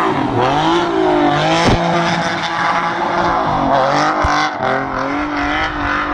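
Sports car engine revving up and down repeatedly as the car drifts, its tyres spinning and squealing in clouds of tyre smoke.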